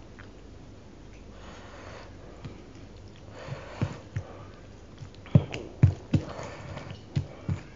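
A bare hand mixing rice into chicken curry on a steel plate: soft wet squishing with sharp clicks of fingers against the plate, coming thicker and louder in the second half. Sniffing between them.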